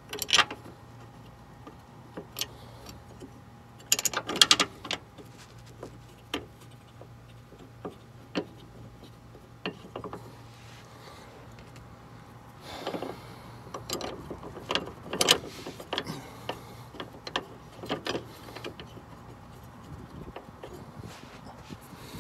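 Scattered metallic clicks and clinks of hand tools and bolts as the bolts of a rear sway bar mounting bracket are threaded into the car's underbody, coming in short clusters a few seconds apart.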